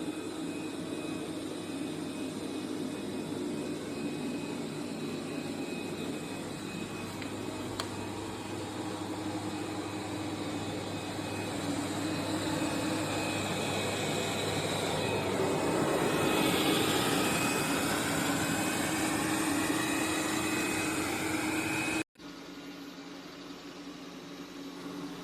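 Dreame L10s Pro Gen 3 robot vacuum running, a steady suction-motor hum. About two-thirds of the way through it grows louder, with tones gliding up and down. After a sudden cut near the end it goes on more quietly.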